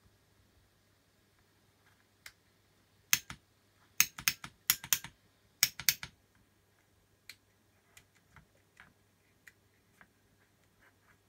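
Sharp plastic clicks of buttons on a small manual switch pad being pressed, a quick run of about a dozen between three and six seconds in, then scattered fainter ticks. A faint steady low hum lies underneath.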